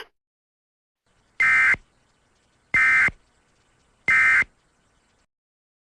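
Emergency Alert System end-of-message data tones: three short, identical digital buzzing bursts a little over a second apart, the SAME code bursts that signal the end of an alert.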